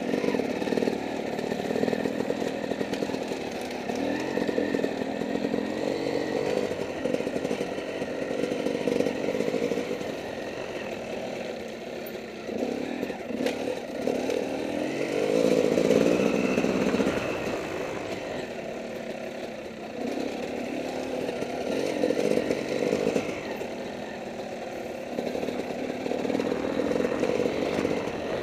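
Dirt bike engine revving up and down as the throttle is worked along a tight, twisty trail, rising and falling every few seconds and loudest a little past halfway.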